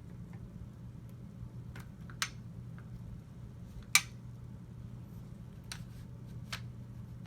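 Metal parts of a GSG AK-47 .22 LR rifle clicking and clinking as they are handled during disassembly: a handful of sharp clicks, the loudest about four seconds in, over a steady low hum.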